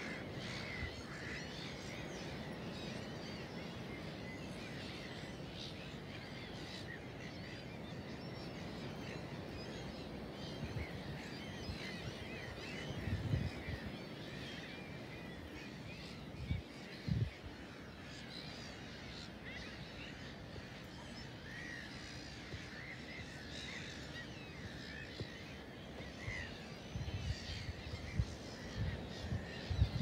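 A large flock of gulls calling: a dense, continuous chorus of short squawks and cries over a steady hiss of open air. Now and then, around the middle and again near the end, there are a few low thumps.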